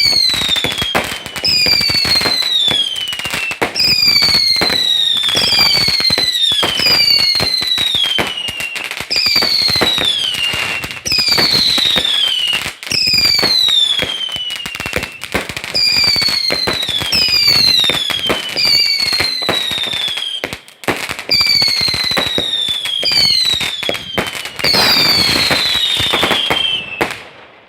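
Fireworks display: a continuous crackle of small bangs, with a string of whistles, each sliding down in pitch and following one another every second or two. It cuts off suddenly near the end.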